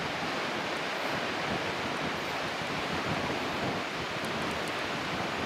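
Strong, constant wind buffeting the microphone: a steady rushing noise with an uneven, gusty low rumble.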